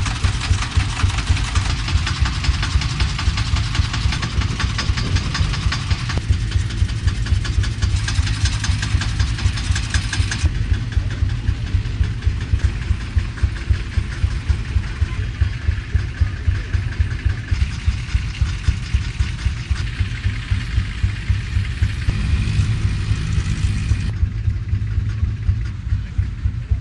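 Old tractor engine idling with a steady, even, low beat.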